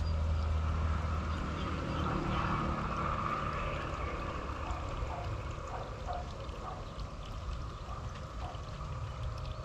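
Water trickling and running in a concrete drainage channel, a steady light splashing, over a low rumble that is strongest in the first few seconds.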